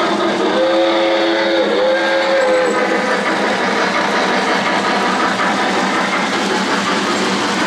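O-gauge three-rail model train running, its onboard sound system giving two held chord whistle blasts in the first few seconds over the steady rumble of wheels on the track. The rolling noise goes on as the freight cars pass close by.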